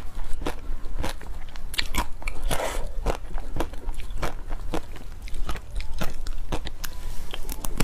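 Close-miked biting and chewing of a chocolate-coated mung bean ice cream bar: the thin chocolate shell cracks and crunches in many sharp, irregular crackles between the bites.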